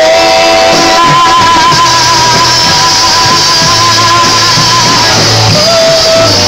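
Live blues band playing loudly, with guitar: a long held note with vibrato rides over the band for about four seconds, with a steady bass line underneath.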